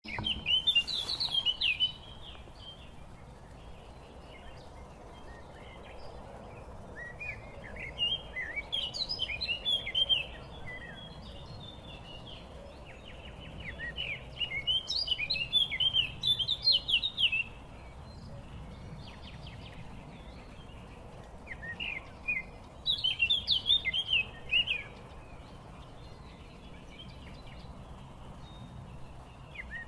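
A songbird singing rapid, chattering phrases of two to four seconds, repeated every few seconds, over a steady low background rumble.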